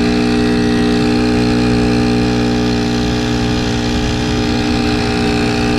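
Honda GX35 35cc four-stroke, air-cooled engine on a kayak drop-in drive, running steadily near full throttle with an even pitch that does not change, heard from right beside the engine.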